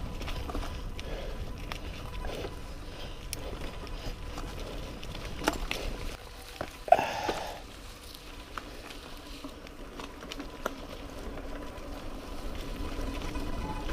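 Mountain bike rolling over a dirt trail: a steady low rumble with wind on the microphone and a few sharp clicks and rattles from the bike. About halfway through, a short high squeal from the disc brakes is the loudest sound.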